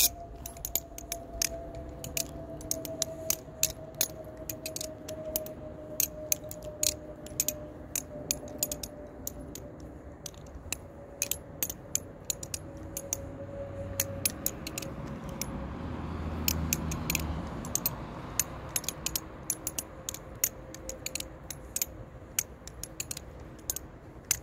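Butterfly knife (balisong) being flipped through repeated rollovers: a steady run of sharp clicks and clacks, several a second, as the handles swing around the pivots and knock together. A faint steady hum slowly falls in pitch underneath.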